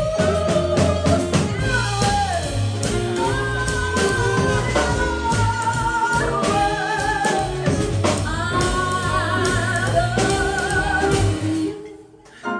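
Music: a singer holding long notes with vibrato over instrumental backing. The music breaks off near the end.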